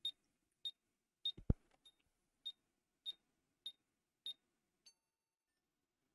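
Short, high electronic beeps repeating about every 0.6 seconds, nine in all, which stop just before five seconds in: a ZX Spectrum sounding through its beeper while a diagnostics ROM tests it. A single low thump comes about a second and a half in.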